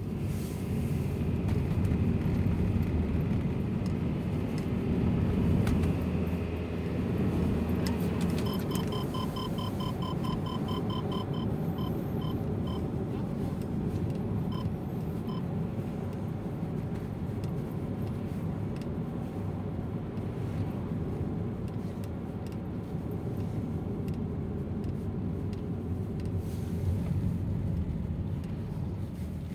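Honda Freed GB3's 1.5-litre L15A four-cylinder engine and road noise from inside the cabin as the car is driven under throttle, the load at which the owner hears a knock. A quick run of short beeps sounds about nine seconds in, thinning out over the next several seconds.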